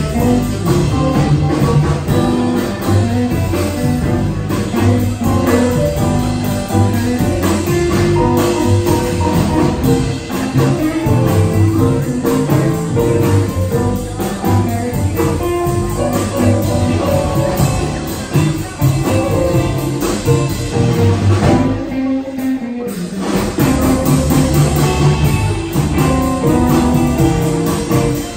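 Live blues band playing. The low end drops out for about a second roughly three-quarters of the way through, then the full band comes back in.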